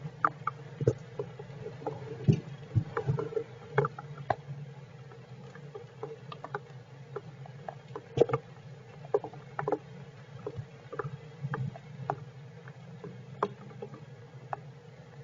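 Rain tapping irregularly on the shelter, sharp drips of varying strength, a few a second, over a steady low hum.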